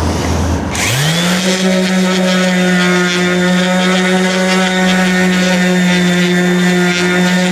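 Handheld electric power tool starting up: its motor spins up over about a second, then runs at a steady high speed with a constant hum. The tool is being used to flatten back rusty bodywork on a van.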